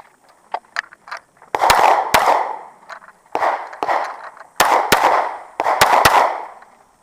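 Handgun fired in quick pairs of shots, about eight in all, each shot ringing out with a short echo. A few faint clicks come in the first second before the first shot.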